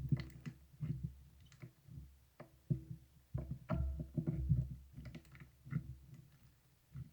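Marbled slime being squished and poked by hand, making irregular sticky clicks and small pops over soft low thuds.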